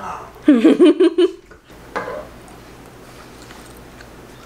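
A man's short, loud, hummed "mm!" of approval while tasting a chocolate, followed by quiet room tone with a few faint clicks.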